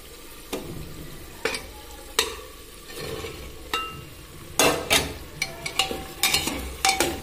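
Slotted steel spoon and a metal bowl clinking and scraping against an aluminium pressure cooker as soya chunks are tipped into the tomato masala, over a faint sizzle. A few separate clicks come first, then a quick run of clatters from about four and a half seconds in.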